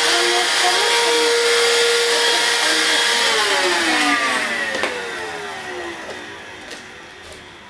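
Dibea F6 cordless stick vacuum running with its crevice tool, then switched off about three seconds in. Its motor whine falls in pitch and fades as it spins down, with a single click partway through.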